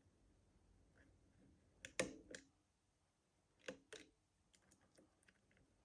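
Small metallic clicks of lever-lock picking tools working inside an Easi-T lever lock as its levers are lifted: three close clicks about two seconds in, two more near four seconds, then a few faint ticks.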